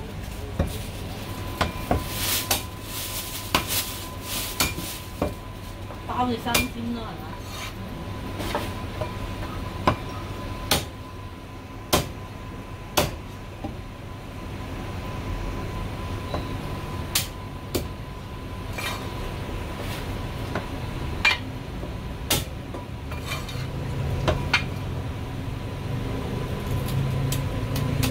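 Chinese cleaver chopping marinated goose neck on a round chopping block: sharp, irregular knocks, about one every second or two, with pauses while the pieces are handled.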